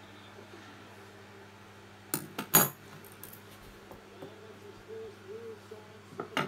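Small metal parts clinking against a hard surface: three sharp clinks close together about two seconds in, and one more near the end, over a faint steady hum.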